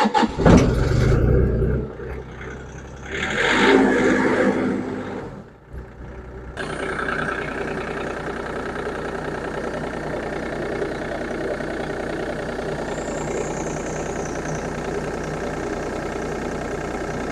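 Bobcat E35 excavator's diesel engine being cranked and starting, with its fuel system freshly bled of air after a fuel filter change. It then settles into a steady idle, with a louder stretch about three to four seconds in.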